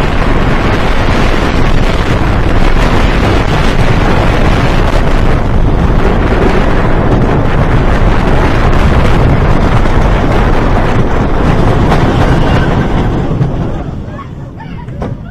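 Timber Wolf wooden roller coaster train running fast along its wooden track, with heavy wind buffeting the microphone. The noise falls off sharply about fourteen seconds in as the train slows.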